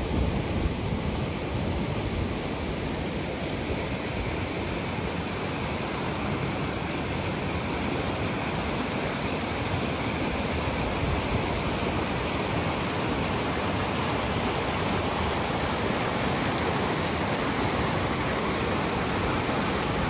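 Rushing river water, a steady, unbroken noise.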